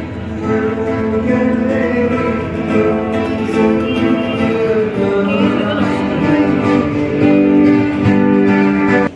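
Background music led by guitar, with singing; it cuts off suddenly at the end.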